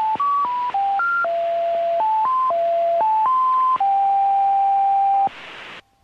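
Numbers station's electronic tone tune: a string of pure tones stepping up and down in pitch, a dozen or so notes, the last one held about a second and a half. A short burst of radio hiss follows, then the signal cuts off abruptly.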